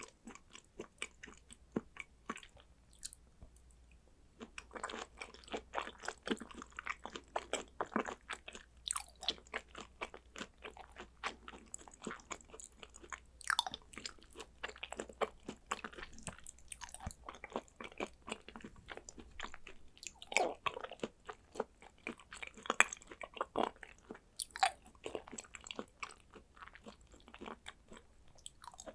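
Close-miked chewing and wet mouth sounds of someone eating thin slices of raw Korean beef: irregular smacks and clicks, with a quieter pause early on before the chewing picks up again.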